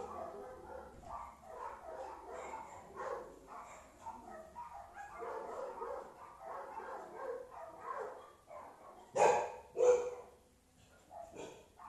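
A dog barking repeatedly in quick short barks, with two louder barks about half a second apart a little after nine seconds in.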